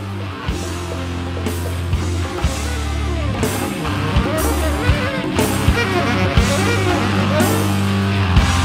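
Instrumental rock band recording: guitar over a sustained bass line and drum kit with regular hits, growing steadily louder.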